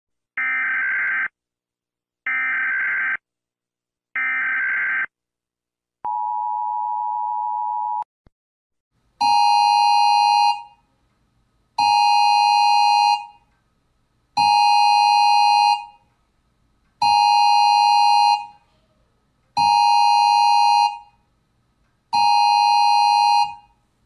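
Emergency alert signal tones. Three one-second bursts of a warbling data tone, like an EAS header, are followed by a steady electronic tone lasting about two seconds. Then come six repeated alert beeps, each about a second and a half long, roughly every two and a half seconds.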